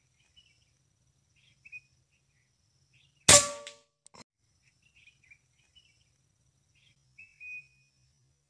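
A single air rifle shot: one sharp crack with a brief ring, followed under a second later by a faint click.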